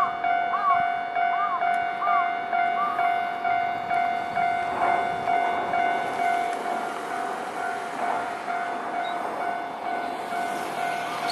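Japanese level-crossing warning bell ringing in a steady, evenly repeating pattern. A Nankai electric train passes over the crossing partway through, adding a rushing rumble under the bell.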